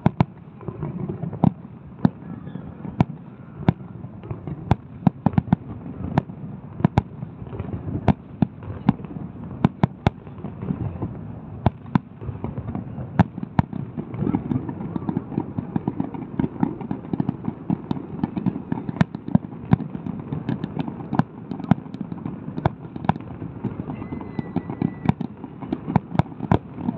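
Fireworks display: an irregular run of sharp bangs, at times several a second, over a steady low rumble.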